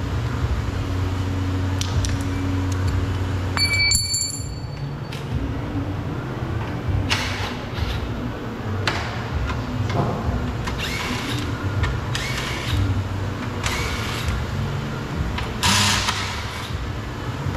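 A cordless drill-driver runs in short bursts, backing out screws and clips around a car's headlight and front trim, with knocks and rattles of plastic trim pieces being handled between runs.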